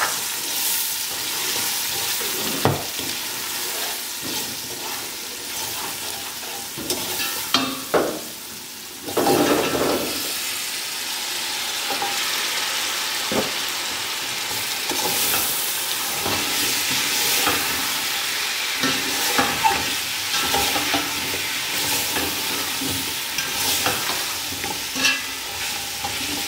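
Onions, green chillies and whole spices sizzling in oil in a stainless-steel pot, stirred with a wooden spoon that scrapes and knocks against the pot. About nine seconds in the sizzling surges louder as chunks of potato and carrot go in.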